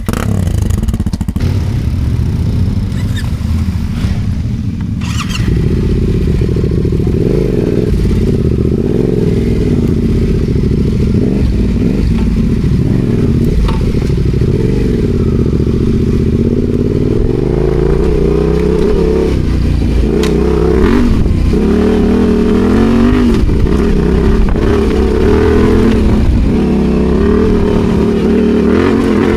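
Adventure motorcycle engine under way off road, its pitch rising and falling as the throttle is opened and shut, with some light clatter.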